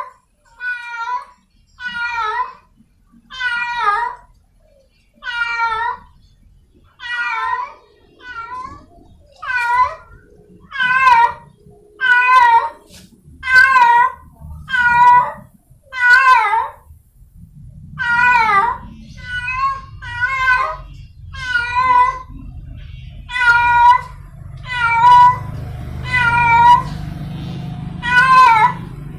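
Free-roaming village cat in heat calling over and over to attract a mate, about one wavering meowing call a second. A low background rumble comes in about halfway through.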